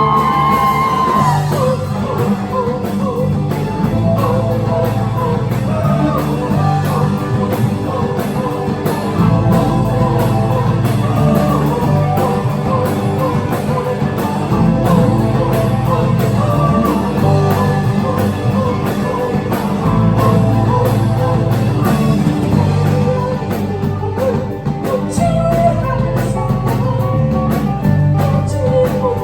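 Indie rock band playing live, with singing over the band's instruments and a steady beat, heard in the venue's room.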